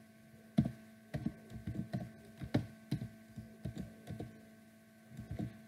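Computer keyboard typing: a dozen or so irregular keystroke clicks that stop shortly before the end, over a faint steady electrical hum.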